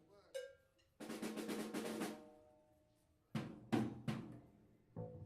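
Loose, scattered hits on a rock drum kit, snare and bass drum, with pitched instrument notes ringing on after some of them: a band noodling between songs rather than playing a tune.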